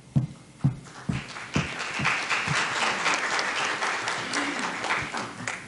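Audience applauding, swelling about a second in and dying away near the end, with a few low thumps just before it starts.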